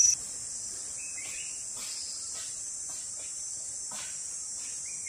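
Steady high-pitched drone of forest insects, with two short rising chirps, one about a second in and one near the end.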